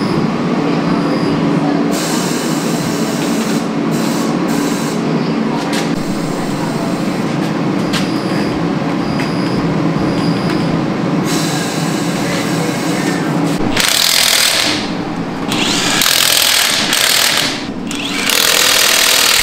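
Tire-changing machine's motor running with a steady hum while a large off-road tire is mounted on its wheel. About fourteen seconds in this gives way to an impact wrench run in three short bursts on the lug nuts.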